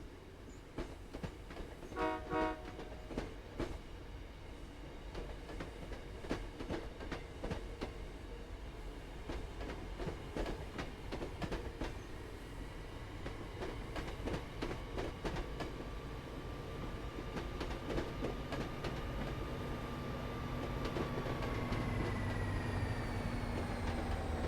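MBTA commuter train passing, its wheels clicking over the rail joints in many sharp clacks. A brief pulsing tone sounds about two seconds in. In the second half a whine slowly falls in pitch while a low rumble grows louder toward the end.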